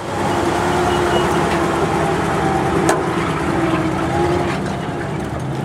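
Truck engine running close by, a steady hum that eases slightly near the end, with one sharp click about three seconds in.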